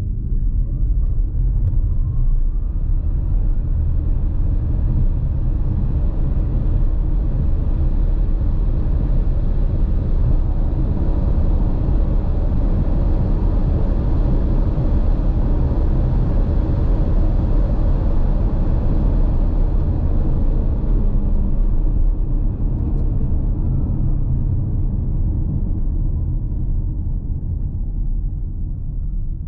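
Cabin sound of a 2023 Polestar 2 dual-motor electric car accelerating hard from standstill to about 190 km/h. Faint electric motor whine climbs in pitch under heavy road and wind noise that builds with speed. Near the end the noise eases and the whine falls in pitch as the car slows.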